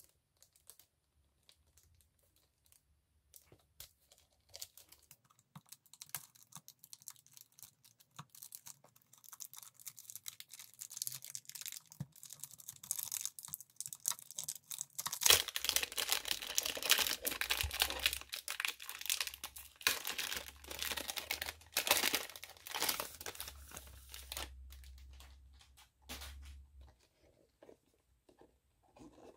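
Clear plastic wrap crinkling and tearing as it is peeled off a fountain pen box. Light handling clicks at first; the crackling builds about ten seconds in, is loudest in the middle, and dies away a few seconds before the end.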